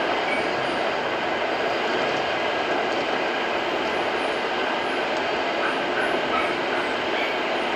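Steady road and engine noise inside a moving car's cabin, an even rushing hiss that holds level throughout.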